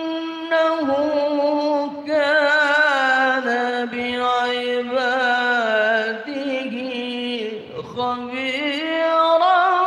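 A man reciting the Quran in the melodic tilawah style, amplified through a microphone. He holds long notes and decorates them with rapid wavering runs, pausing briefly for breath.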